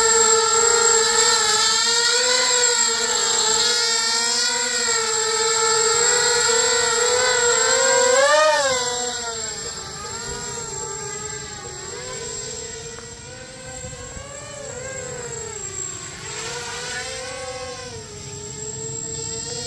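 Electric motors and propellers of a home-built FPV drone whining in flight, the pitch wavering up and down with the throttle. About eight seconds in it swells to its loudest, then turns noticeably quieter for the rest of the flight.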